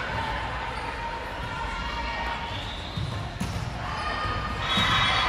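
Volleyball play in a gym: a single sharp ball impact about three and a half seconds in, over the steady chatter of players and spectators, with voices growing louder near the end.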